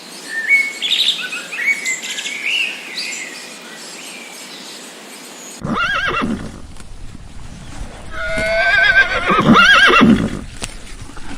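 Small birds chirping for about five seconds, then a horse whinnying, a short whinny followed by a longer, louder one with a wavering pitch near the end.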